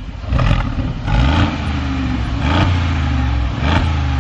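Mercedes G500 4x4² twin-turbo V8 running just after start-up, its side-exit exhaust barking as the throttle is blipped about four times over a steady idle.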